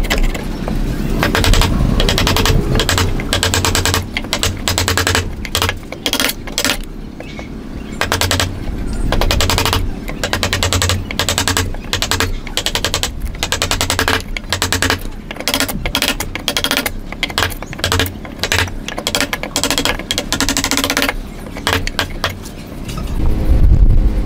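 A chisel is struck again and again, chopping out waste from a notch in a wooden block: rapid sharp knocks, several a second, with short pauses between runs. A heavier low thump comes near the end.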